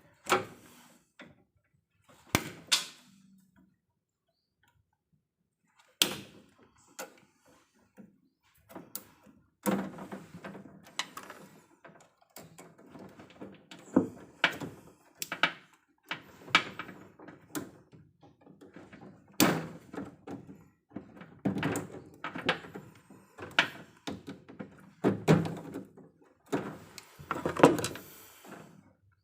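Irregular sharp knocks and clunks of hand work on an electrical distribution panel: metal parts and tools being handled around burnt cabling. There is a quiet pause of about two seconds a few seconds in.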